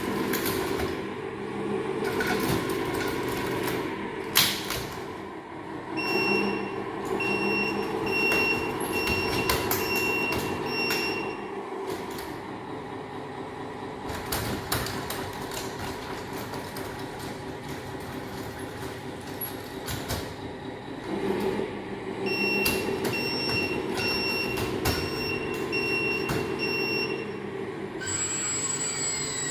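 1:15-scale hydraulic RC bulldozer running: its hydraulic pump and motors whir steadily while its tracks clatter and squeal, with many small clicks and knocks. A high beep repeats about twice a second in two stretches, about a fifth of the way in and again around three-quarters of the way through.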